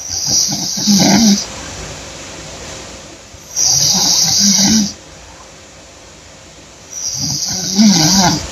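A woman snoring loudly in deep sleep: three long snores about three and a half seconds apart, each a low buzz with a hiss of breath, with softer breathing between.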